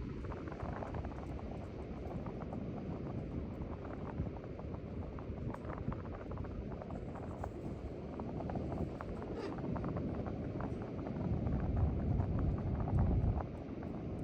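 Strong wind buffeting the microphone: a steady low rumble scattered with small clicks, gusting harder about eleven seconds in.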